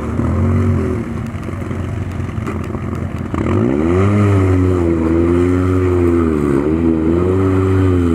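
Polaris RZR side-by-side engine revving under load as it breaks through ice in a water-filled ditch. A short rev comes right at the start, then the revs climb sharply about three seconds in and stay high, with a brief dip near the end.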